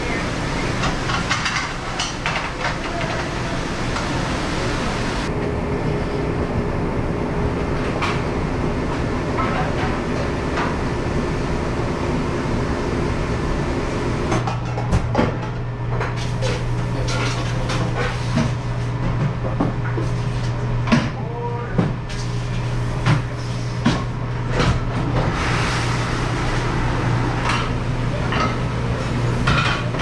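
Commercial conveyor dish machine running steadily, with plates, pans and dish racks clattering and knocking at the dish station. About halfway through, a low steady hum comes in under the clatter.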